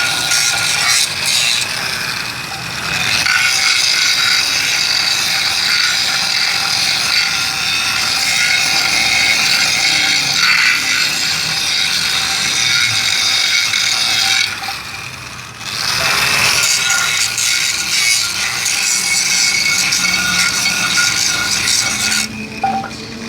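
Grinder working over the surface of an old metal frying pan, a steady harsh rasp as the pan is resurfaced. The grinding breaks off briefly about fifteen seconds in and again near the end.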